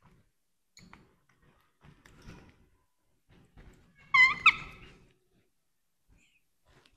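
Baby monkey squeaking: two or three short, high-pitched squeaks in quick succession about four seconds in, amid a few faint clicks and knocks.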